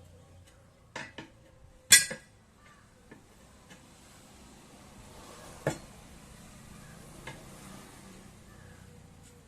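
A handful of sharp metallic clinks and knocks from tyre-changing tools striking metal, with the loudest about two seconds in and another near six seconds, over a faint background.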